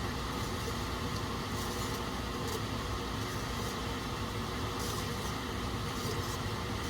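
A steady fan-like hum, such as a kitchen extractor or air conditioner, with a few faint light clicks and taps of kitchenware as drained potatoes are added to a bowl.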